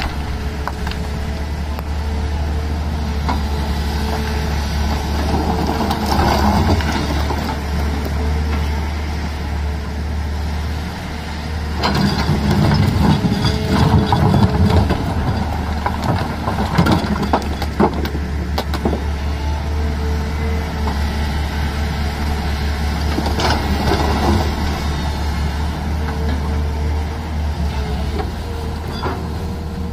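Tata Hitachi crawler excavator's diesel engine running steadily under load while it digs and swings rock. Rocks knock and clatter against the bucket now and then, loudest and thickest about twelve to fifteen seconds in.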